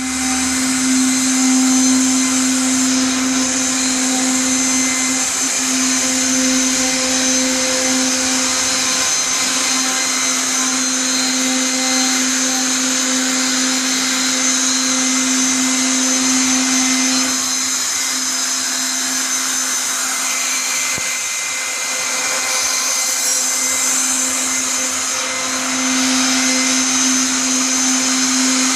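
CNC machine running: a steady, loud motor whine over a dense hiss. It eases slightly a little past halfway and picks up again near the end.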